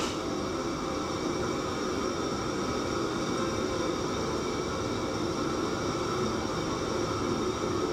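Steady rushing kitchen noise with a few faint steady hums, over a large pot of beef offal soup at the boil.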